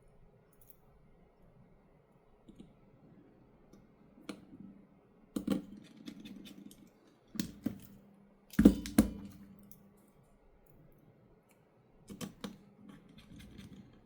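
Small clicks and taps of metal tools and phone parts being handled while a smartphone's screws are refitted. They come irregularly every second or two, with the loudest, a double knock, a little past the middle.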